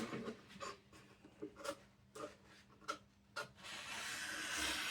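Sharp scissors cutting a sheet of self-adhesive vinyl wrap film: a few separate snipping clicks, then about a second before the end a steady hissing slide as the blades glide through the film.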